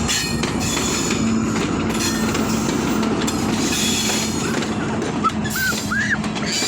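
Passenger train running on the rails: a steady rumble and clatter of wheels, with a few short high squeaks near the end.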